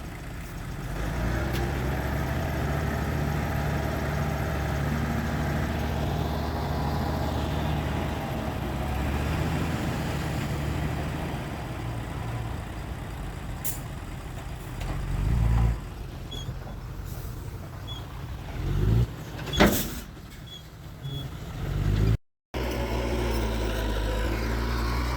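Heavy diesel engines of earthmoving machinery (dump trucks and a bulldozer) running steadily, with the engine note swelling twice in the second half and a brief sharp hiss late on.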